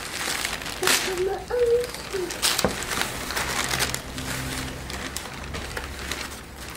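Paper gift wrapping crinkling and tearing in short, repeated rustles as presents are unwrapped by hand.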